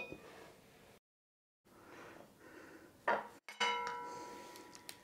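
Metal tongs clinking against dishware as a braised meat roll is lifted from the pot onto a ceramic plate: a sharp clink about three seconds in that rings on and fades over a second and a half, with a lighter clink at the very start and a few faint ticks near the end.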